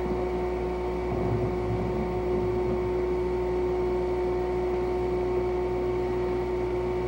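Steady electrical hum and hiss: a constant mid-pitched tone over a low drone.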